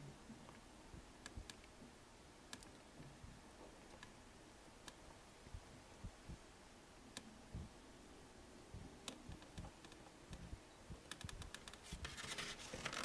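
Faint, scattered clicks and scratches of fingers pressing and rubbing an adhesive Sony Action Cam mount onto a plastic bicycle helmet shell, growing busier near the end.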